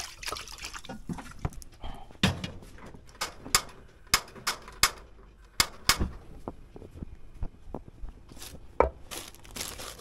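Kitchen handling noises: a string of sharp clicks and knocks from a steel pot and the stove being handled, thickest in the middle, with a louder knock near the end.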